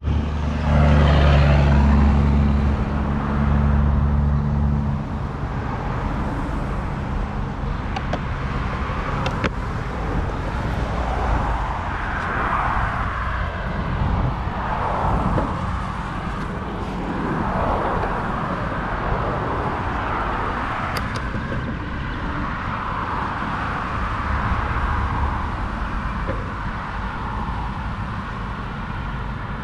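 Road traffic going past on the adjacent road: cars swelling and fading as they pass, over a constant low rumble of wind and movement on the microphone. A steady low engine-like hum, the loudest part, runs for the first five seconds and then stops.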